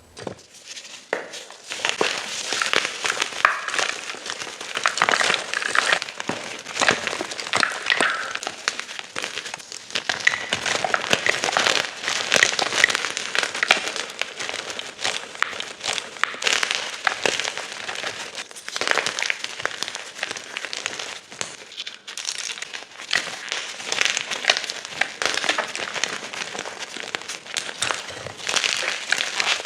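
Gym chalk being crushed: a dense, continuous crunching and crackling as the chalk crumbles.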